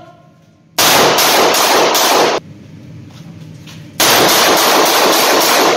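A revolver is fired in two quick strings of shots that run together and ring off concrete-block walls. The first string starts just under a second in and the second about four seconds in, each lasting about a second and a half.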